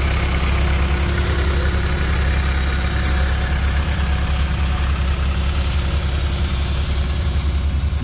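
Heavy diesel engines of road-paving machinery, an asphalt paver and a road roller, idling steadily at a low, even pitch.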